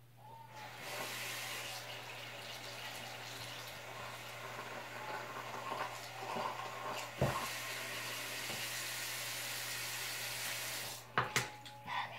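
Bathroom sink tap running steadily while teeth are brushed, shut off about eleven seconds in, followed by a few clicks and knocks at the sink. A single knock sounds about seven seconds in, and a low steady hum runs underneath.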